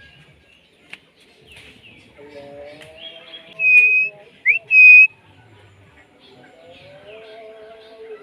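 Pet myna whistling: two loud, short, clear whistles about three and a half and five seconds in, with a quick rising note between them, over quieter, lower chattering notes.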